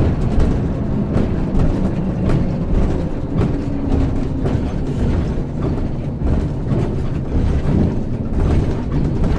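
Cabin noise inside an express bus on the move: steady engine and road rumble, with frequent rattles and clicks from the bus's fittings.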